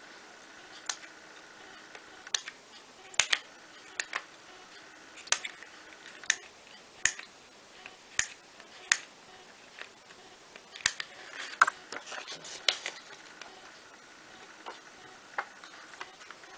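Small fine-pointed parchment-craft scissors snipping through perforated parchment held on a fingertip: a series of short, sharp clicks about one a second, coming more quickly for a moment about two-thirds of the way through.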